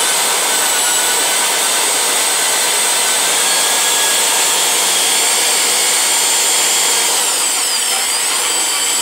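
Electric drill running steadily, spinning a length of 16 gauge galvanized steel wire that is being drawn through a snug hole in a wooden block to straighten it. The motor's whine dips and comes back up near the end.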